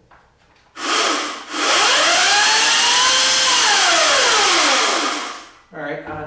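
Echo 58V battery-powered chainsaw running with no load: a short burst, then a run of about four seconds in which the motor's whine rises in pitch and then falls away as it winds down.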